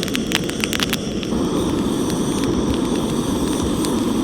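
Small campfire crackling and popping for about the first second, then an abrupt change to a steady rushing noise with only an occasional click.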